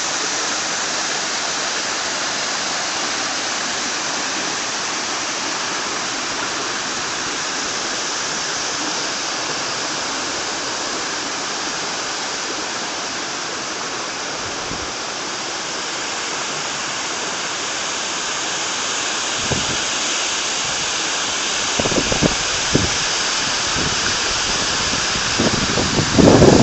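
A small waterfall on a rocky woodland stream, water splashing and rushing steadily over the stones. A few low thumps come in near the end.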